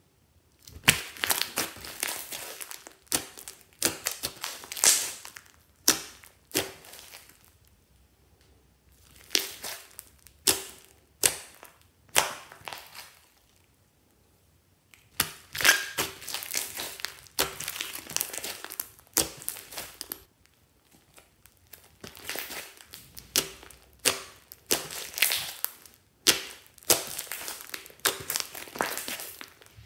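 Fluffy slime studded with foam beads being pressed and poked by hands, its trapped air popping and crackling in quick clustered bursts, with a few short quiet pauses between them.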